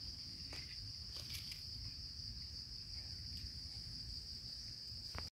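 An insect drones steadily in one shrill high pitch, over a faint low rumble, with a few soft ticks.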